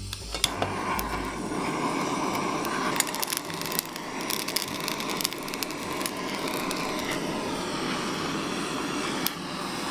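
Handheld kitchen blowtorch flame hissing steadily as it chars the skins of peppers, tomatillos and onion, with scattered sharp clicks and crackles.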